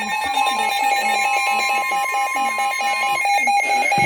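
Emergency Alert System alert tone between two warning messages: a steady electronic alarm tone that cuts off about three seconds in.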